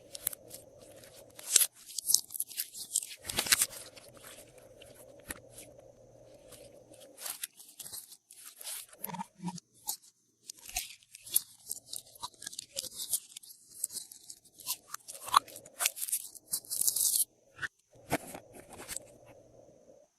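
Glossy slime with random add-ins being kneaded and squeezed by hand, giving bursts of crisp crackling and crunching, loudest in two stretches near the start and in the second half.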